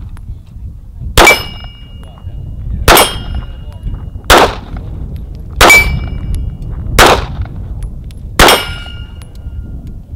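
Six pistol shots fired at a steady pace, about one every second and a half, emptying the magazine. Several shots are followed by a short metallic ring as the bullets strike steel plate targets.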